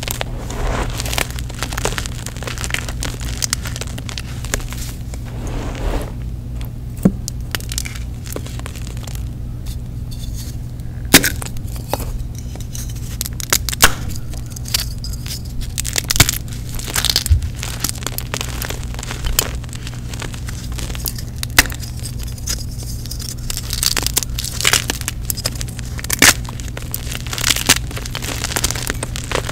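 Dyed gym chalk crushed and crumbled by hand: irregular crunching with sharp snaps as the chunks break apart, over a steady low hum.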